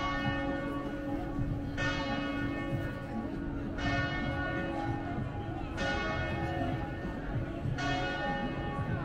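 A single church bell tolling, struck about every two seconds, five strikes in all, each stroke ringing on until the next.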